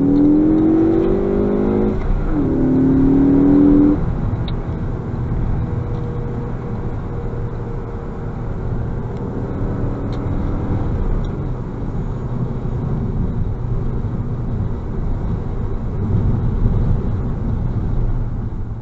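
2018 Ford Focus ST's turbocharged 2.0-litre four-cylinder heard from inside the cabin, accelerating with a rising engine note, dropping in pitch at an upshift about two seconds in, rising again, then easing off about four seconds in to a steady cruise with road noise.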